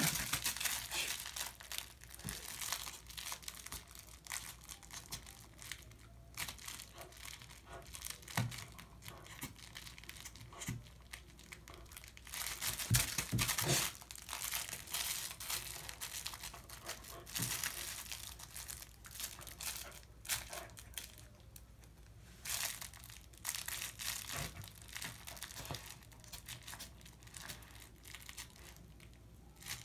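Dog chewing and worrying a plush toy, its material crackling and rustling in irregular flurries, loudest about halfway through.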